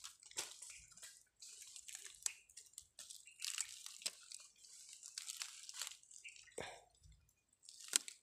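Dry twigs and small roots crackling and snapping as a hand pulls at them in a tangle of dry stems, in faint irregular clicks.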